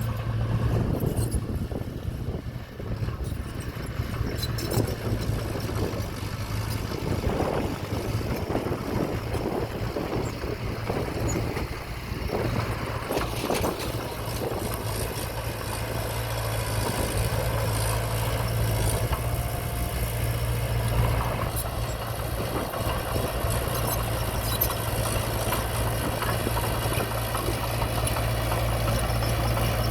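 Diesel engine of earthmoving machinery running steadily, with scattered clanks and rattles; it grows a little louder in the second half.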